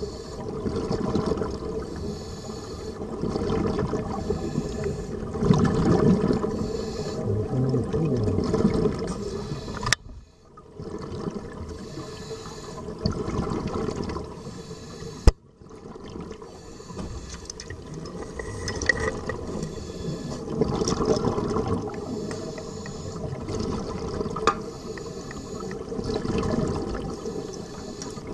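Water sloshing and rushing in uneven swells, broken twice by a brief dropout with a sharp click, about ten and about fifteen seconds in.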